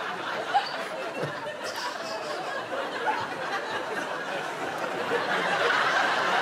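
Studio audience laughing, a steady wash of laughter that swells a little toward the end.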